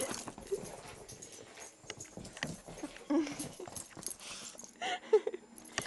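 A Chihuahua playing wildly, making a few short vocal noises amid scuffling on fabric and quick knocks.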